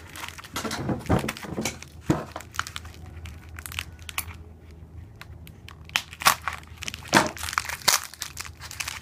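Packaging crinkling and rustling in irregular bursts as nixie tubes are taken out of their wrapping, with a few sharper crackles and small tearing sounds.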